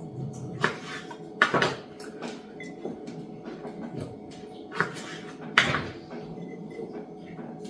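A few knocks and clunks as cucumber spears are pushed and packed into a glass mason jar, over a steady low hum.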